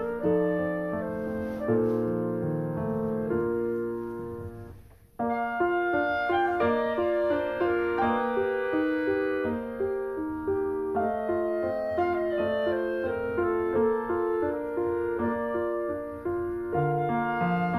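Piano-led instrumental background music; about five seconds in it fades out briefly, then starts again.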